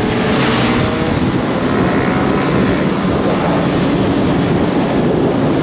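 Yamaha R15 M's single-cylinder engine running under way, buried in a steady rush of wind noise on the camera microphone, its pitch shifting slightly about a second in.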